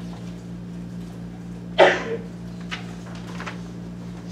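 A person coughs once, sharply, about two seconds in. Two fainter short sounds follow, and a steady low hum runs underneath.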